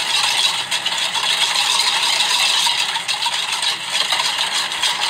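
Wire whisk beating an egg-and-sugar mixture in a stainless steel bowl. The wires rattle and scrape against the metal in a fast, continuous clatter.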